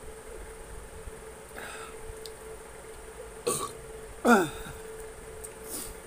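A man burping twice: a short burp about three and a half seconds in and a louder one just after, both falling in pitch. A faint steady whine runs underneath.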